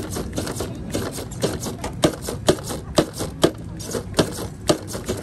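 A radio-controlled lowrider car hopping on concrete, sharp knocks of the car landing coming about twice a second.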